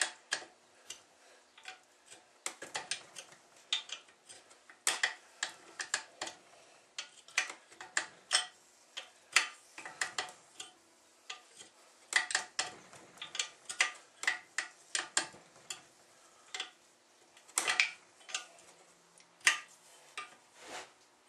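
Irregular metallic clicks and clinks of hand tools working on small engine parts, as the carburetor linkage and governor of an antique Fairbanks Morse engine are taken apart.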